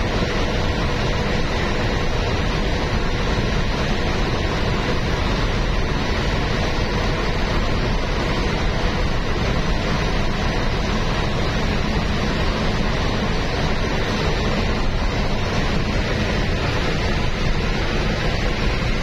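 Steady rumble and rush of tyre and wind noise from a vehicle travelling at highway speed, heard from inside it.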